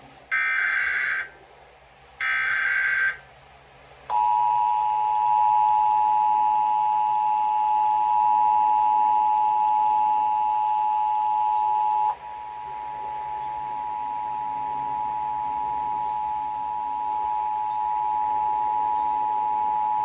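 Emergency Alert System test played through a TV's speaker. First come two more of the short, screechy SAME data header bursts, each about a second long with a second's gap between. From about four seconds in, the steady two-tone EAS attention signal sounds, dropping somewhat in level at about twelve seconds and still sounding at the end.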